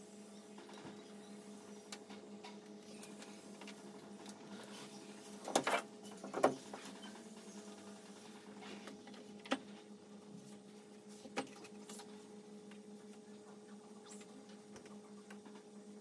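Steady hum at several fixed pitches, with a few scattered clicks and knocks; the loudest come as a cluster about five and a half to six and a half seconds in, with single clicks later.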